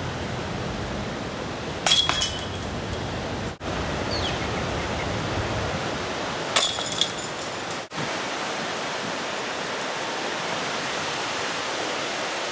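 Disc golf putts striking the hanging chains of a metal basket: two bright metallic chain jingles, about two seconds in and again about six and a half seconds in, over a steady outdoor hiss.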